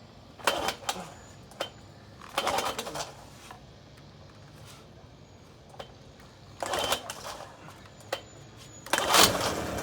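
The recoil starter of a 1980 Evinrude 15 two-stroke outboard is pulled four times with the choke on, each pull a short whirring rush as the rope spins the flywheel. The engine does not settle into running between pulls.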